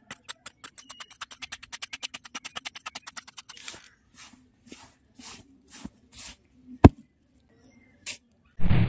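Rapid clicking that speeds up to about ten clicks a second, then short scraping swishes about every half second as loose damp soil is heaped into a mound by hand. A single sharp snap comes near seven seconds in, and a low thud near the end.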